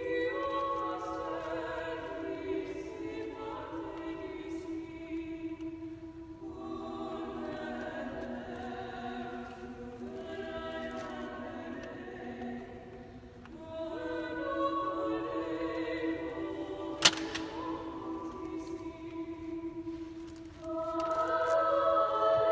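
Women's choir singing in held chords, phrase after phrase, with short breaks between phrases. A single sharp click sounds about three quarters of the way through.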